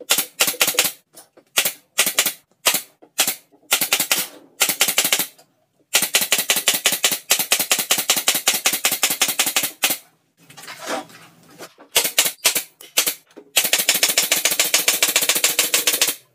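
Nail gun firing rapidly in quick bursts of many shots, with short pauses between runs, fastening particleboard panels of a cabinet. The longest run goes on for about four seconds without a break.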